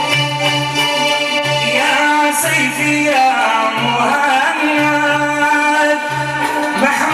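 Samra wedding music: a male singer sings a melismatic Arabic melody over an electronic keyboard, which plays held organ-like notes above a steady, repeating bass beat. The singing comes in about two seconds in.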